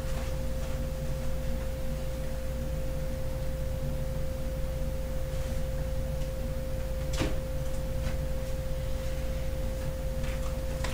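A steady pure tone held at one unchanging pitch, over a low hum, with a single short click about seven seconds in.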